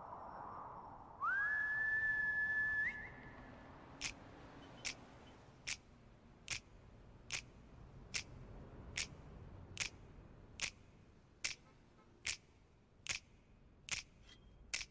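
A loud whistle slides up and holds one note for almost two seconds, ending on a short upward flick. Then finger snaps keep a slow, steady beat, a little faster than one a second, as the intro to a song.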